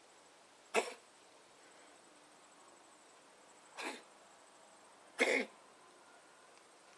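Kitten coughing three times, each cough short and sudden, the first about a second in and the other two a second and a half apart.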